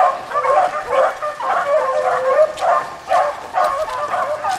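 A pack of beagles baying as they run a rabbit's track: many short, overlapping howling barks, several a second, without a break.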